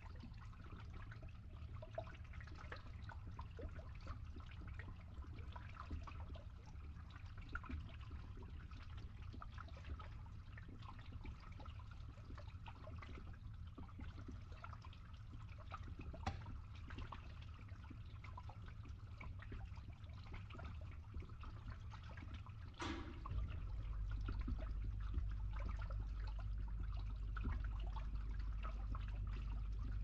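Water trickling and draining through a pipe over a steady low hum from a pump. About 23 seconds in there is a sharp click, and the low hum then becomes louder and steadier.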